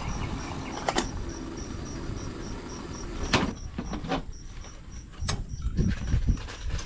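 Sharp metal clinks of stainless steel camp cups, tongs and a folding coffee dripper being handled and set down, a few scattered knocks over a steady low rumble.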